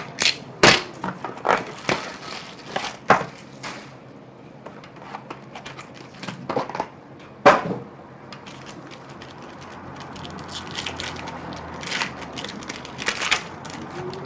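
Plastic and foil wrapping crinkling and tearing as a sealed trading-card box is unwrapped and its foil-wrapped pack pulled open, with scattered clicks and knocks of the box and cutter on the table. The clicks and rustles come thick in the first few seconds, thin out, then pick up again near the end as the pack is opened.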